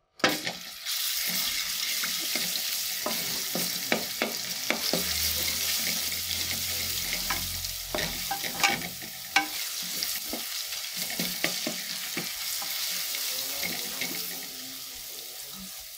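Minced garlic sizzling in hot oil in an aluminium pressure cooker, starting suddenly as it goes in, while a wooden spatula stirs it with scattered scrapes and taps against the pot. The sizzle eases off near the end.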